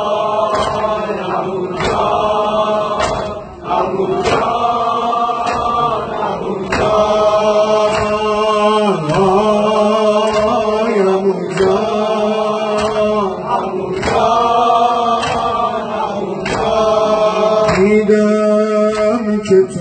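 Men chanting a Persian noha lament in a slow, repeating melody, over a rhythmic slap of hands beating on chests (matam) about once a second.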